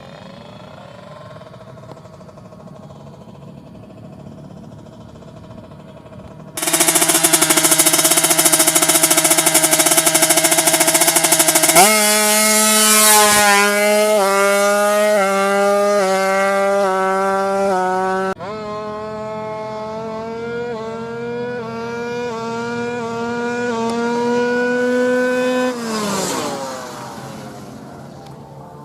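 Kawasaki Ninja drag bike engine, running low and steady, then suddenly revved hard and held at high revs. The pitch climbs in repeated steps, drops, climbs again, then falls away as the throttle closes near the end.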